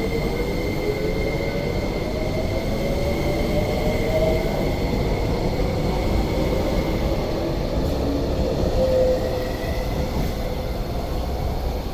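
MTR electric multiple-unit train pulling out of the platform: its traction motors whine, rising in pitch over the first few seconds as it accelerates and then holding steady, over a continuous rumble of wheels on rail.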